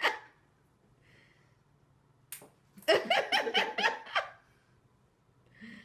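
A single sharp tap about two seconds in, then a burst of laughter, rapid pulsing 'ha-ha' sounds lasting just over a second.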